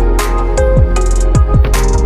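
Electronic background music: held synth chords over a beat of deep kick drums that drop in pitch, about two a second, with sharp crash-like hits.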